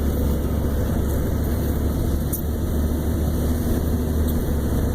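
Steady low rumble of a truck's engine, heard from inside the cab.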